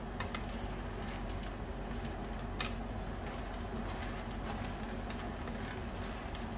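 Shrimp soup at a rolling boil in a pan, bubbling, with a ladle stirring through it and scattered small pops and clicks, the sharpest about two and a half seconds in. A steady low hum runs underneath.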